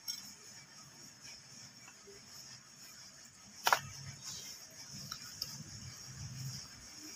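Quiet room tone with faint handling noise, broken by one sharp click a little over three and a half seconds in and a few fainter ticks afterwards.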